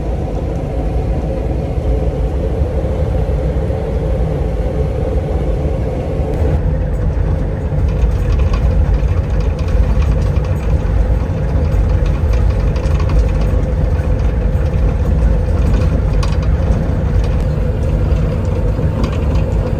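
Motorhome running on the road: a steady, loud low engine and road rumble, changing abruptly about six and a half seconds in.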